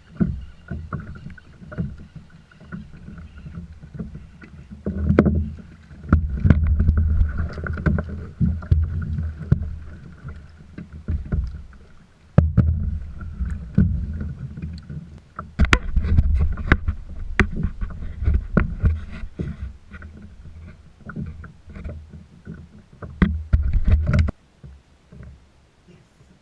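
Sounds from a fishing kayak on the water: scattered knocks and bumps on the hull and gear over a steady low rumble of water and wind on the camera. The rumble drops away abruptly near the end.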